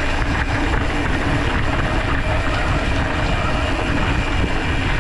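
Steady rushing rumble of wind on the microphone and tyre noise from a mountain bike riding over a dirt forest road.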